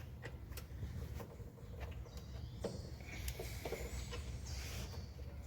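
Faint scattered clicks and light knocks of metal parts and tools being handled while a suspension stabilizer link is worked into place, with a faint high-pitched sound in the middle.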